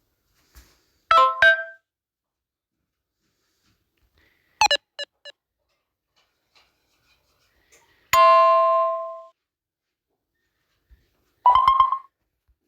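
A Samsung Galaxy A21s phone playing four short tone samples one after another, with silence between them. First come two quick notes, then a run of four fading pings, then one longer ringing chime, and near the end a quick flurry of notes.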